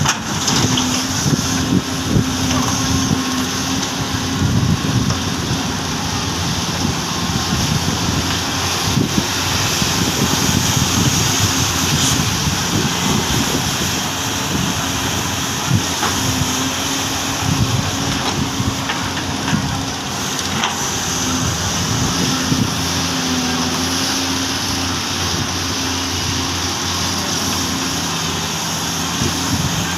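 Doosan excavators' diesel engines running steadily under work, with wind buffeting the microphone and a few brief clanks.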